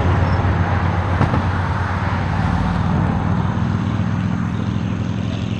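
CSX freight train's diesel locomotives running with a steady low engine drone, growing slightly fainter.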